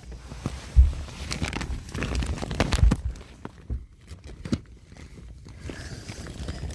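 Rustling and handling noise of a phone rubbing and bumping against bedding, with scattered clicks and a few low thumps, the loudest about a second in and again near three seconds in.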